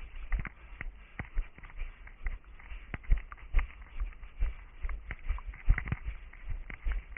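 Running footsteps of an orienteer crossing forest terrain: uneven thuds and knocks about twice a second, over a low rumble.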